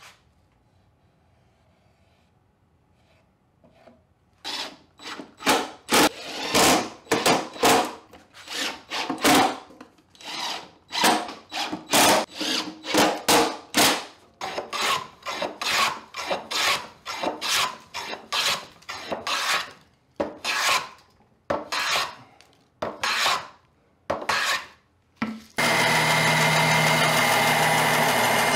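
Hand tool scraping wood in repeated short strokes, about one and a half a second with brief pauses, starting about four seconds in. Near the end a band saw running cuts in suddenly and takes over with a steady hum.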